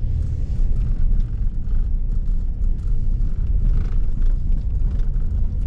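A four-wheel-drive vehicle driving slowly along a snow-covered road, heard from inside the cabin: a steady low rumble of engine and tyres.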